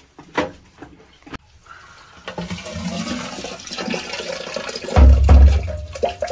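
Siphonic toilet flushing, its water rushing out of the outlet through the plastic insert flange and down the drain pipe, after two sharp clicks of the seat being handled. The water goes down only because the toilet is tilted, which leaves an air gap at the flange; sealed tight, the unvented old drain air-locks and the bowl will not empty. A loud low rumble comes about five seconds in.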